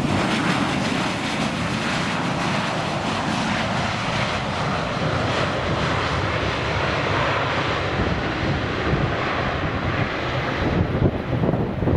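Boeing 737-800's CFM56-7B turbofan engines in a loud, steady rush as the airliner rolls out after touchdown. Near the end the engine noise dies away and wind buffets the microphone.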